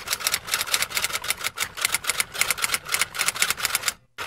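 Typewriter-style typing sound effect: a rapid run of keystroke clicks, several a second, laid under on-screen text being typed out. It breaks off briefly near the end, then starts again.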